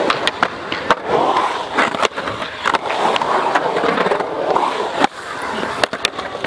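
Skateboard wheels rolling around a concrete bowl, the roar swelling and fading as the skater carves up and down the walls. Several sharp clacks cut through it.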